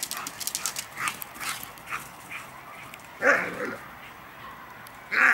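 Two large dogs at rough play: a run of quick clicks and short yips, then two loud barks, one about three seconds in and one near the end.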